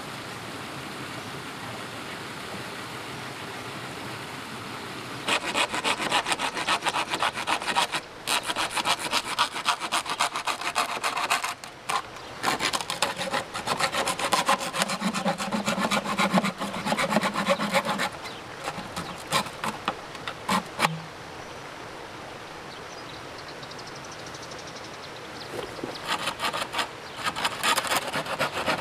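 Hand saw cutting through bamboo in quick back-and-forth strokes. It starts about five seconds in, pauses briefly twice, slows to a few separate strokes, stops for several seconds, and resumes near the end.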